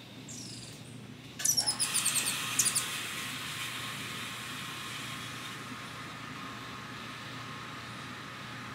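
An animal call: a thin falling whistle, then about a second and a half in a sudden burst of rapid high chattering that settles into a steady hiss, slowly fading.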